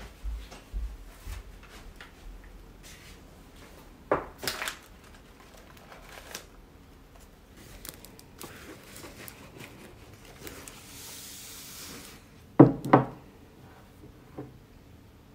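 Household handling sounds at a wooden table: a few low thumps at the start, a pair of knocks about four seconds in, a stretch of rustling of a bag or paper wrapping, then a sharp double knock near the end, the loudest sound, as a small vase and bag are set down on the wooden tabletop.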